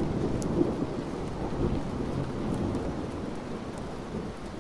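Steady rain with a long roll of thunder that swells at the start and slowly dies away.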